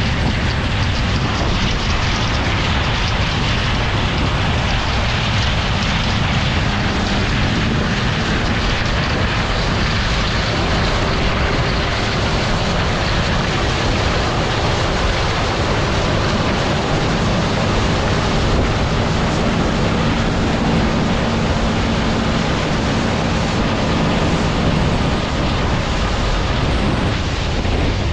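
A John Deere 9660 STS combine running steadily as it harvests corn: a loud, even rushing drone with a faint engine hum under it that grows clearer as the machine passes close by. Wind rumbles on the microphone throughout.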